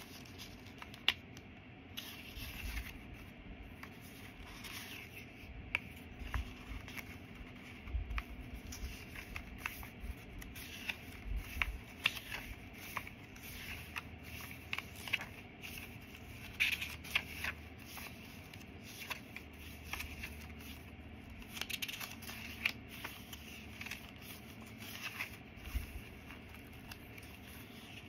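Paper pages and tags of a handmade junk journal being handled and turned: irregular rustling, scraping and light ticks, with a few soft low thumps.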